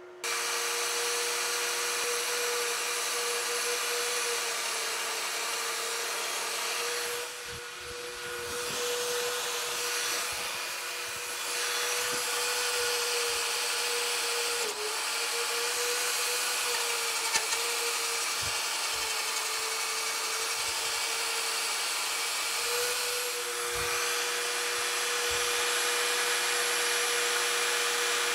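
Metabo die grinder with a mounted grinding stone, switched on at the start and running with a steady high whine and hiss while grinding the jaws of a six-jaw lathe chuck; the whine dips briefly a few times as the stone takes load.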